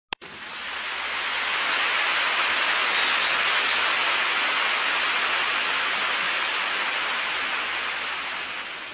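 A steady, even rushing hiss that swells in over the first couple of seconds and slowly fades toward the end, with a brief click at the very start.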